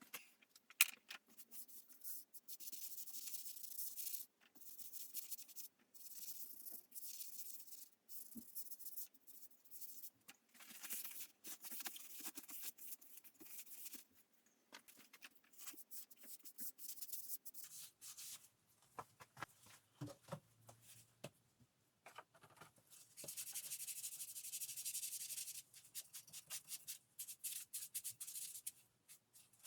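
Rubbing on a surface in repeated scratchy strokes by hand, in spurts of a second or two with short pauses, with a sharp click about a second in and a longer steady stretch about three quarters of the way through.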